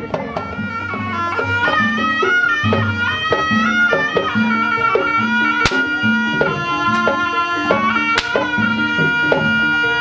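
Traditional kuda kepang (jaranan) ensemble music: a wind instrument's melody of held, stepping notes over a steady drum and percussion rhythm. Two sharp cracks cut through the music, about five and a half and eight seconds in.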